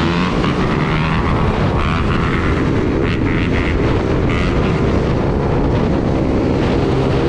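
Motorcycle engine running at a steady speed, a constant drone.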